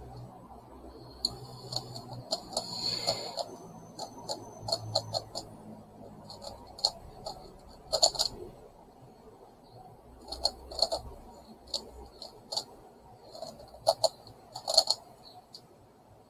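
Plastic megaminx (twelve-sided twisty puzzle) being turned in the hands: irregular clicks and clacks of its faces snapping round, with a few louder clacks now and then.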